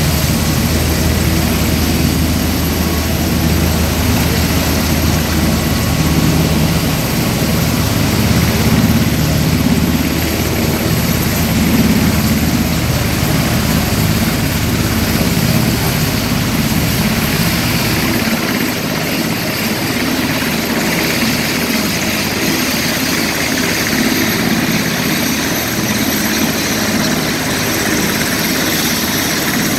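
Loud, steady aircraft engine noise. A deep low rumble carries on until about two-thirds of the way through and then drops away, leaving a hissier jet roar as the Boeing 747 Air Force One lifts off near the end.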